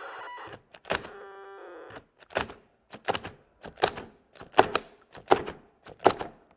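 DeWalt and compact Milwaukee cordless drills locked chuck to chuck and driving against each other at stall. A short stretch of steady motor sound gives way to a regular run of sharp clunks, about every 0.7 seconds, as the drills' cutoff switch keeps cutting them out and they are driven again.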